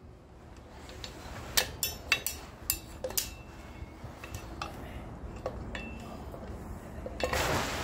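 Drum brake shoes, return springs and self-adjuster clinking and clanking against the steel backing plate and hub as the assembled brake is worked into place around the axle. There is a quick run of sharp metal clinks a couple of seconds in, scattered clinks after, and a scraping rustle near the end.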